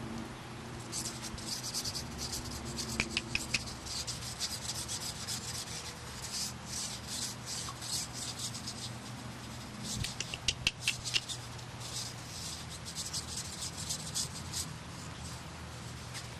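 Kittens' paws and claws scratching and rustling across a fabric sheet in quick, scratchy strokes, with a few sharp little clicks in between.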